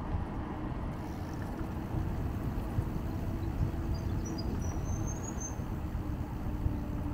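Steady wind rumble on the microphone and tyre noise from riding along a concrete path. A bird chirps a few times in the second half.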